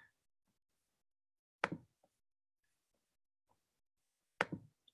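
Near silence broken by two brief clicks or knocks, about three seconds apart.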